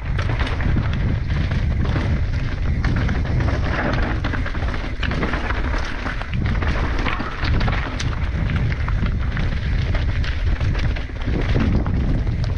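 Mountain bike descending a rocky dirt trail: a steady low rumble of wind buffeting the camera's microphone, with tyres crunching over dirt and stones and a constant scatter of clicks and knocks from the bike rattling over the bumps.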